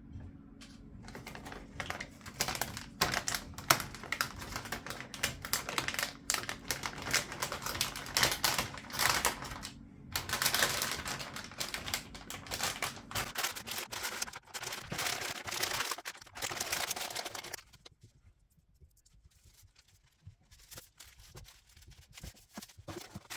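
Handling noise: a rapid clatter of small clicks and rustles for about sixteen seconds that stops abruptly, with a low steady hum underneath for most of it.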